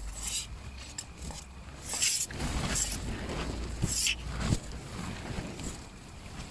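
Strong wind buffeting the microphone: a steady low rumble with several hissing gusts or rustles, the loudest about two and four seconds in.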